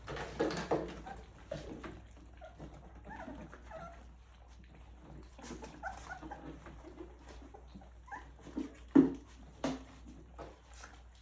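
Three-week-old Rottweiler puppies whimpering and squeaking in short, scattered cries, with a couple of louder ones near the end.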